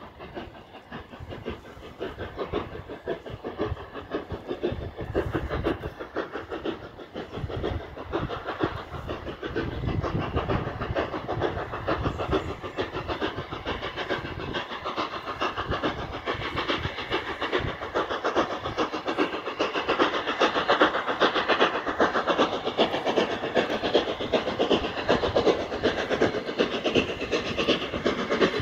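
Flying Scotsman, an LNER A3 three-cylinder Pacific steam locomotive, approaching under steam. Its rapid exhaust beats grow steadily louder as it draws nearer.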